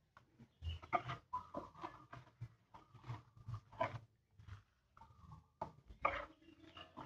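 Silicone spatula stirring thin crepe batter in a plastic bowl: irregular scraping and sloshing strokes, some with brief squeaks, as the batter is mixed until smooth.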